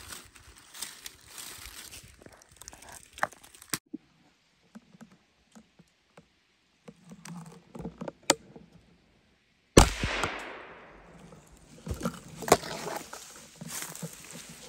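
A single gunshot about ten seconds in, its echo dying away over about a second. Faint rustles and clicks come before and after it.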